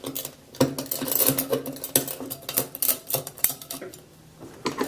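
Knife tip repeatedly stabbing and scraping at an iPhone 6s's rear camera lens and aluminium back: a run of irregular sharp metallic taps and scrapes, easing off briefly near the end.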